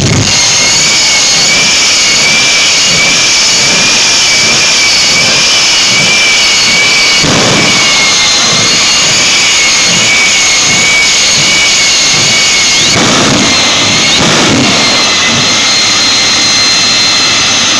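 F-4 Phantom jet engine on a Kenworth semi truck running at high power with the afterburner lit: a loud, steady roar with a high, slightly wavering whine on top. It swells briefly a few times.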